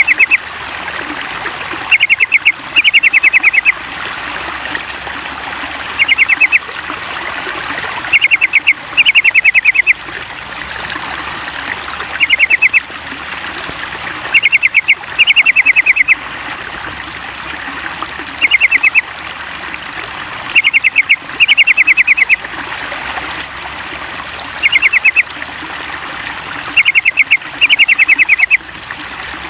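Yellow-vented bulbul (trucukan) song: short bursts of rapid chattering notes, repeated every couple of seconds and often in pairs, over a steady trickle of running water.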